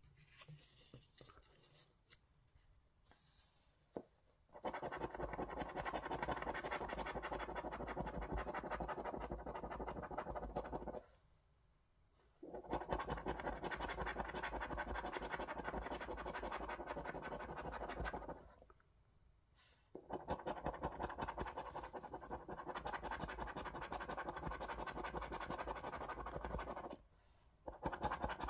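A coin scratching the scratch-off coating on a £2 National Lottery 'Black & Gold' scratchcard, in rapid strokes. It comes in three long runs with short pauses between them, after a few seconds of faint card handling at the start.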